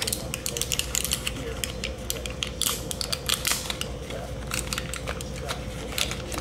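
Small cardboard coil box being handled and its flap folded shut over a spare vape coil: a run of light clicks and crinkles, with a longer rustle about three seconds in.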